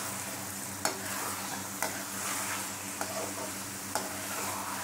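Onion, capsicum and tomato masala sizzling in oil in a kadhai while a metal spatula stirs it, with three sharp clicks of the spatula against the pan. The oil is separating at the sides, the sign that the masala is cooked.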